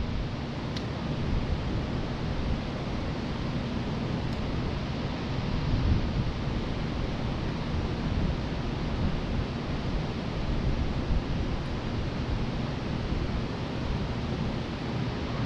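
Many electric fans (box fans, pedestal fans and air circulators) running together, a steady rush of air, with some uneven low buffeting of air on the microphone.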